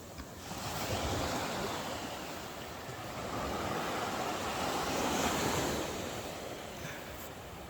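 Ocean surf washing in, swelling about a second in and again, louder, around five seconds, with some wind on the microphone.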